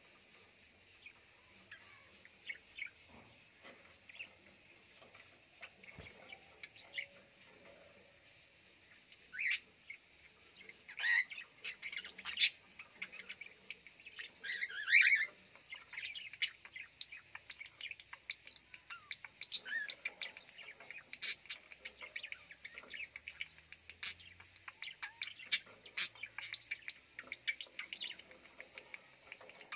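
Budgerigars chirping and chattering in quick, high calls. They are sparse and faint at first, get louder from about ten seconds in, and then keep up a busy, steady chatter.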